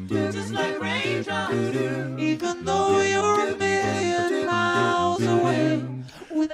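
Live performance of a dance-pop song: layered singing voices over steady held bass notes. The music dips briefly near the end, then comes back in.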